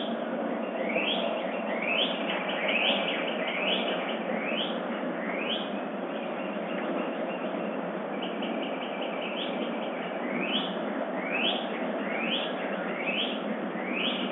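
Dawn chorus: a songbird sings a series of short rising whistled chirps, about one a second, in two runs. Between the runs comes a quicker series of short repeated notes. A steady background rush of noise runs under it all.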